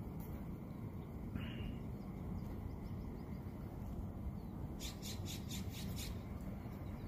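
Outdoor street ambience: a steady low rumble, with a short bird chirp about a second and a half in and a quick run of sharp high ticks around five seconds in.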